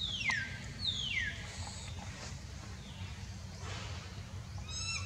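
A baby monkey's high-pitched calls: two falling, whistle-like cries in the first second or so, then a short squeaky call near the end, over a low steady hum.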